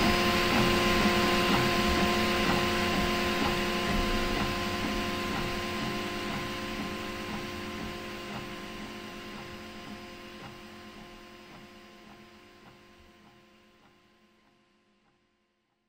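Original Prusa i3 MK2 3D printer running, its stepper motors whining in several steady tones with a regular pulsing; the sound fades away over the last few seconds.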